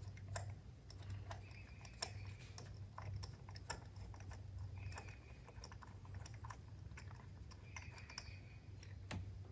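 Faint, irregular clicks and ticks from a spark plug socket and extension being turned by hand, threading a spark plug back into its well in a 2.4 L Ecotec engine, over a steady low hum.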